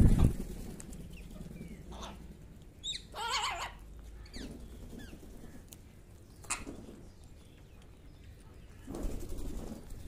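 A flock of house crows and rose-ringed parakeets, giving a few scattered calls, the longest a wavering call about three seconds in. A rush of wing flaps is loudest at the start, with another near the end.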